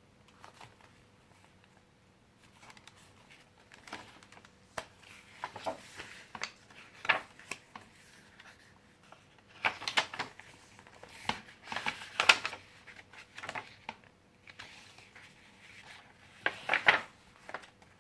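Paper pages of a handmade junk journal being turned and handled, rustling and crinkling in a series of short bursts, the loudest about halfway through and again near the end.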